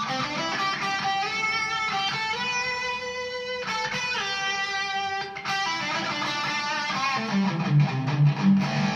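Electric guitar played through an all-tube single-channel amp, the Gunslinger Mark III, at low 'conversation' volume: chords and single notes ringing out, with a few notes sliding in pitch about four seconds in.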